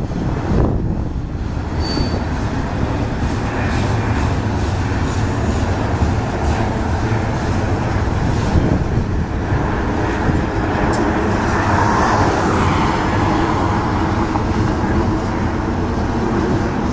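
Double-stack intermodal freight train rolling past: a steady rumble of wheels on rail and cars moving, with faint scattered clicks.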